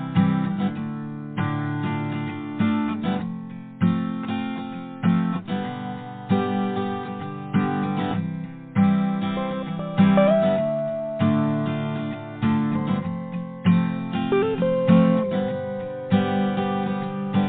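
Instrumental intro of a singer-songwriter song: strummed acoustic guitar chords in a steady rhythm, each strum ringing out before the next, with a few held lead notes above.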